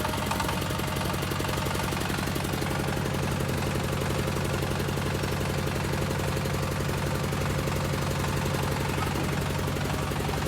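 Diesel engine of a QT4-30 hydraulic block-making machine running steadily, with a fast even pulse and no change in speed.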